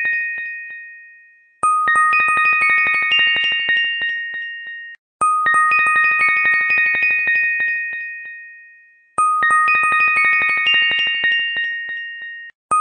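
Looped electronic chime melody: the same short phrase of bell-like notes over rapid ticking plays, fades and breaks off, then starts over every three and a half to four seconds.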